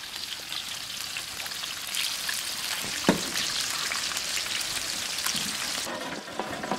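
Peeled boiled eggs frying in hot oil in a large flat metal pan: a steady sizzle full of fine crackles, with one sharp click about three seconds in.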